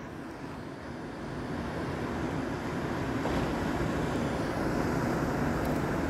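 Steady rush of ocean surf with wind on the microphone, growing slowly louder over the first couple of seconds.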